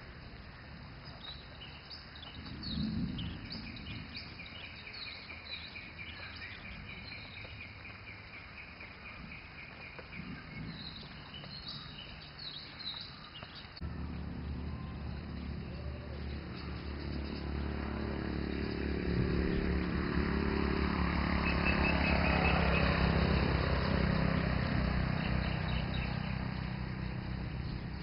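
Birds chirping and trilling over an outdoor background. About halfway in, a motor vehicle's engine starts running steadily, growing louder and then easing off a little near the end.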